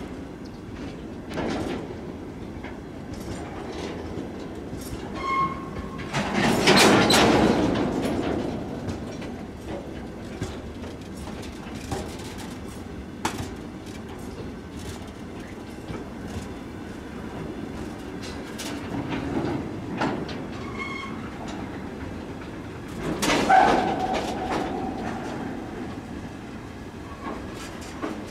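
Freight train of rail tank wagons rolling past at close range, the wheels clicking over the rail joints in an uneven clickety-clack. It swells into louder clattering twice, about six seconds in and again about twenty-three seconds in, with a short wheel squeal just before each.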